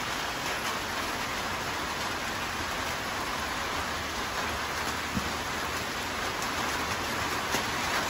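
Light rain falling steadily, an even hiss of drops on the ground and foliage, with a few louder drops ticking near the end.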